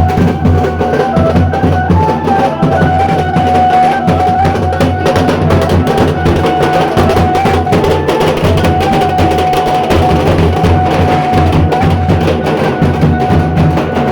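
Very loud drum-heavy music with deep bass blasting from a large DJ sound system, a long held melody note running over the beat.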